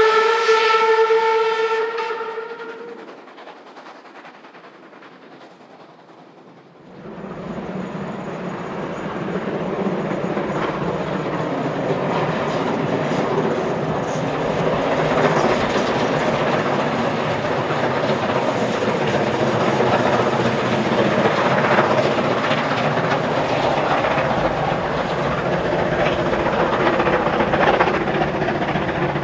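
Steam whistle of the Baureihe 52 steam locomotive 52 6106: one long blast, rising slightly in pitch at first and dying away about three seconds in. About seven seconds in a loud, steady rumble sets in abruptly: the train with the BR 52 working under load, hauling diesel locomotives as test load.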